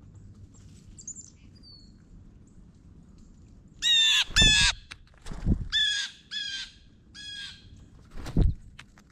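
Birds calling at a feeder: faint high chirps about a second in, then two loud harsh calls about four seconds in and a run of four shorter ones. A few low thumps are mixed in, about one every second or so.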